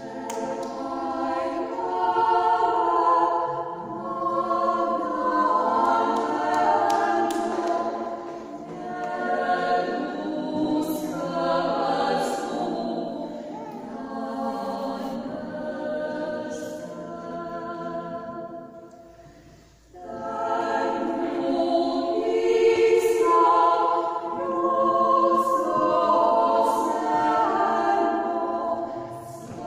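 Women's a cappella vocal group singing a Croatian Easter hymn in several-part harmony in a stone cathedral. The singing pauses briefly about two-thirds of the way through, then resumes.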